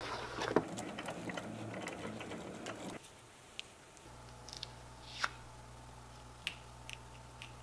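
Cut white vinyl being peeled off a Cricut cutting mat, a dense crackling for about three seconds. Then it goes quieter, with a steady low hum and scattered light ticks as small cut pieces are picked off the mat.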